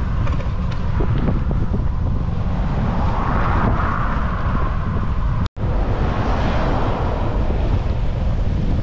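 Wind buffeting the microphone of a camera on a moving bicycle, with motor traffic passing on the road; the noise swells twice as vehicles go by and cuts out for an instant about halfway through.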